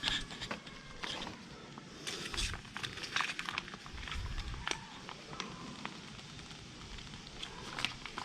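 Irregular plastic clicks and crackling from a squeezable sealant bottle and filler tube being handled while tyre sealant is pushed through the valve into a motorcycle tyre, with a few dull low thumps.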